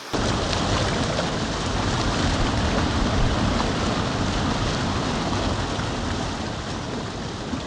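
Rushing stream water making a steady, loud roar.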